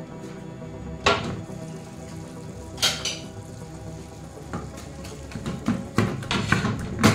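Kitchen pot sounds: a glass lid clanks as it is lifted off an aluminium saucepan, then a wooden spoon knocks and scrapes in the pan as tomatoes are stirred. Two loud clanks come about a second in and near three seconds, then quicker knocks near the end, over background music.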